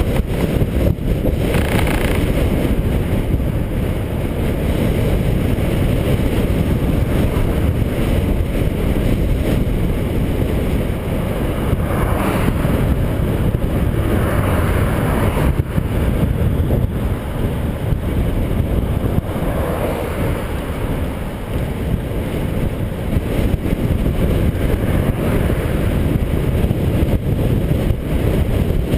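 Wind buffeting the microphone of a GoPro camera on a road bike riding fast downhill: a loud, steady low rumble that hardly changes.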